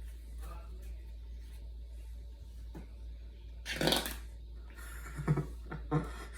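Flarp noise putty squelched in its tub, making fart-like noises. After a few seconds of quiet handling, one longer, louder squelch comes about four seconds in, then a run of short sputters near the end.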